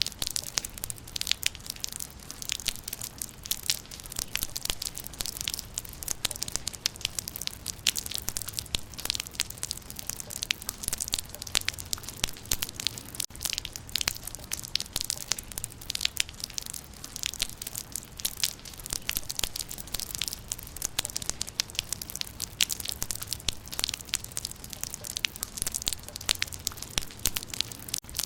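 Rain falling on leaves: a dense, irregular stream of sharp drop impacts, with a low rumble underneath.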